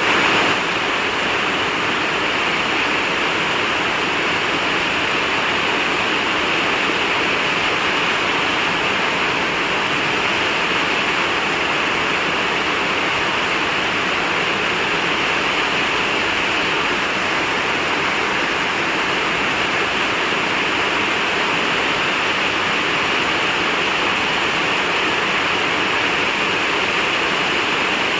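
Rain falling steadily: a dense, even hiss of water with no separate drops standing out.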